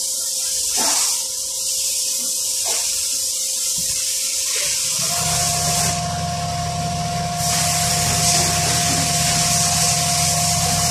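A steady hiss starts suddenly; about five seconds in, a motor starts and runs with a steady hum and a constant whine.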